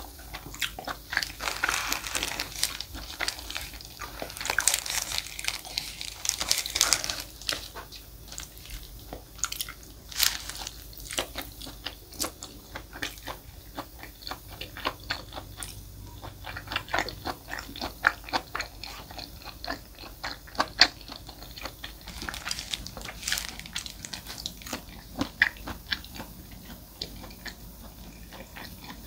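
Close-miked eating: a person chewing and biting food, with many sharp mouth clicks coming irregularly throughout and busier stretches near the start and again near the end.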